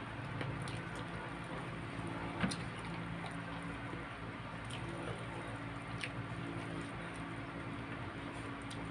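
Mukbang eating sounds: wet chewing and squishing as roast chicken is pulled apart by hand and eaten, with a few short sharp clicks, the loudest about two and a half seconds in, over a steady low hum.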